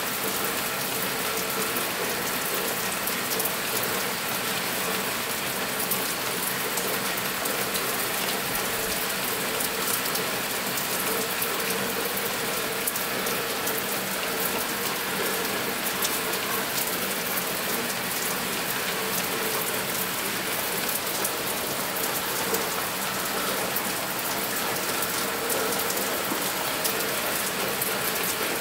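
Steady rain falling, a dense even hiss with many fine ticks of individual drops.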